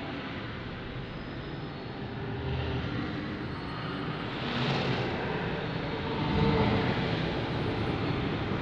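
Eerie electronic soundscape: a dense, rumbling wash of noise, like a passing aircraft, that slowly grows louder, with a brighter hiss swelling about halfway through.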